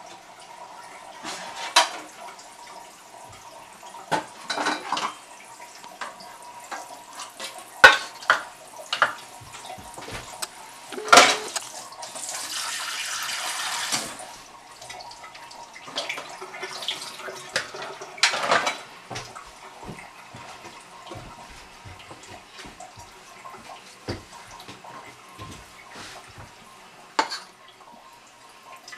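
Kitchen clatter: scattered light clinks and knocks, with a steady rushing noise lasting about two seconds, twelve seconds in.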